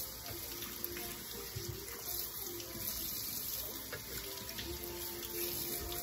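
Homemade soy milk being poured in a steady, continuous stream of liquid.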